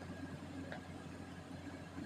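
Steady low electrical hum and hiss of the recording, with one faint click about a third of the way in; no chewing or crunching yet.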